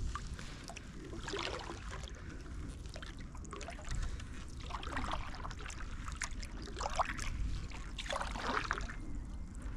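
Water swishing and splashing in a few irregular strokes, over a low steady rumble.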